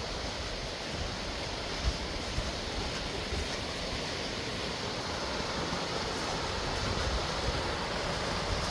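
Steady rushing of water from the creek and falls in the canyon, with wind rumbling on the microphone underneath.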